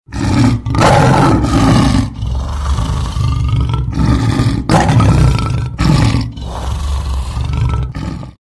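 Lion roar sound effect: a run of deep roars and growls with short breaks between them, cutting off abruptly shortly before the end.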